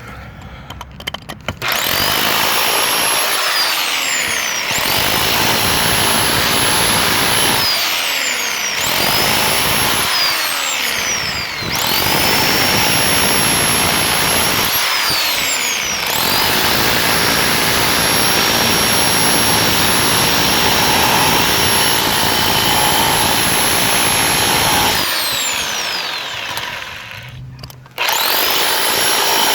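Bauer 1641E-B electric rotary hammer chiselling concrete, stopping and restarting several times. Its motor whine rises as each run spins up and falls as it winds down, with a few seconds' lull near the end.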